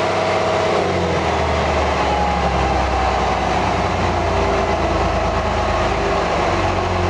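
Cummins 6BTA turbocharged six-cylinder marine diesel running steadily at raised RPM, its sound growing fuller in the low end about a second in.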